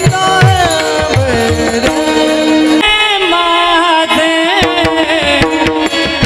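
Marathi kirtan panchapadi: a voice singing a gliding, ornamented melody over a steady drone, with a hand drum playing strokes whose bass falls in pitch. The drum drops out for about a second near the middle, then comes back in.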